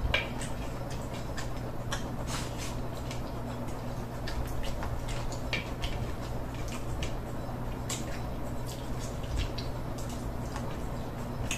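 A person eating rice and chicken with his fingers: irregular small clicks and smacks of chewing and of fingers working the food on a plastic plate, over a steady low hum.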